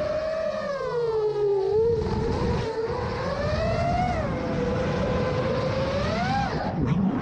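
Seven-inch FPV quadcopter's F90 2806-class brushless motors and propellers whining in flight, the pitch rising and falling with throttle, with a brief dip near the end.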